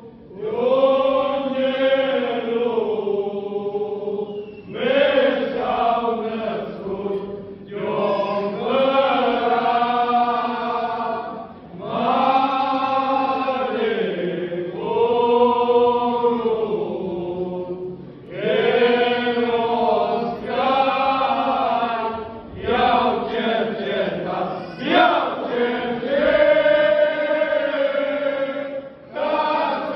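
A group of men from Țara Oașului singing a Romanian colindă (Christmas carol) together. It goes in sung phrases a few seconds long, each with a short break for breath.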